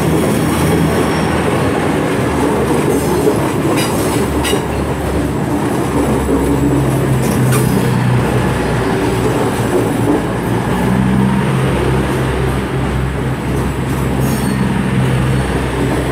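Two coupled Class 220 Voyager diesel-electric trains pulling out of the station, their underfloor diesel engines running under power with a low drone that strengthens about six seconds in, over the steady rumble of wheels on the rails.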